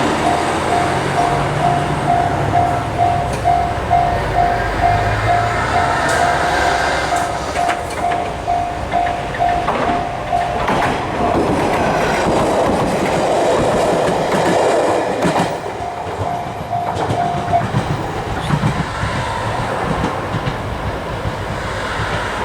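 A Japanese level-crossing warning bell rings its steady electronic "kan-kan", a little over two dings a second, as a train passes. The train's rumble and the clack of its wheels over rail joints swell in the middle and drown the bell for a few seconds. The bell is heard again briefly, then stops near the end.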